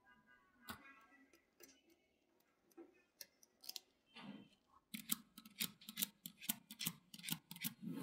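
Small magnetic balls clicking against each other as a sheet of them is rolled up into a tube: a few scattered sharp clicks, then a quick run of many clicks from about five seconds in as the balls snap together.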